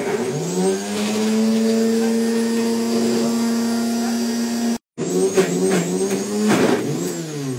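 High-power countertop blender motor spinning up to a steady whine as it chops a jug of carrot and vegetable chunks with flax seed and garlic. After a momentary break, the pitch wavers and dips as the tamper pushes the thick mix down onto the blades, then falls away near the end as the motor slows.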